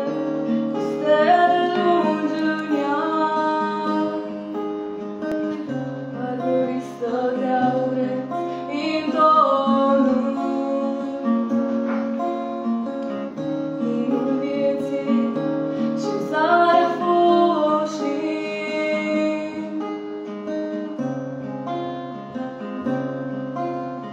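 Acoustic guitar playing the instrumental intro to a folk song: held chords that change every second or two over low bass notes, with a fresh strum now and then.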